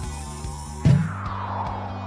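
Cartoon background music, with a sharp thud about a second in followed by a long falling whoosh sound effect.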